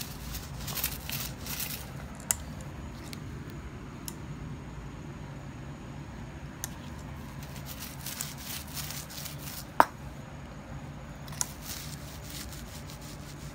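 Small paint roller working epoxy resin into chopped-strand fiberglass mat: faint intermittent sticky crackles and rubbing over a steady low hum, with one sharp click about ten seconds in.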